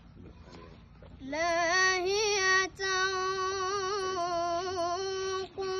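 A boy's voice chanting Quranic recitation in melodic tajweed style, drawing one word out into a long, high, wavering line. It begins about a second in after a pause, with two short breaks for breath.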